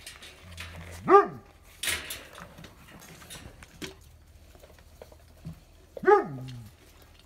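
A puppy barking twice, a single high bark about a second in and another near the end that trails off into a lower whine. A brief scrape comes between them.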